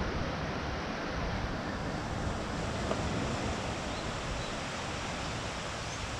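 Steady rushing noise of wind buffeting the microphone, mixed with the wash of surf on a sandy beach.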